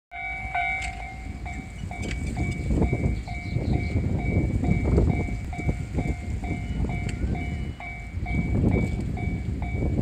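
Japanese railroad crossing alarm ringing its repeated two-tone "kan-kan" ding, a little over twice a second, while the crossing barrier is down. A low rumbling noise runs underneath.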